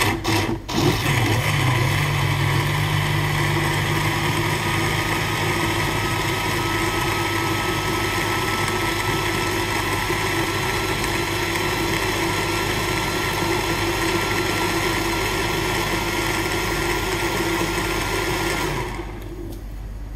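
Countertop blender motor puréeing chopped tomatoes, cucumber, pepper, onion and tomato juice into gazpacho. A few short pulses at the start, then a steady run with a thin whine, which stops about 19 seconds in once the mixture is smooth.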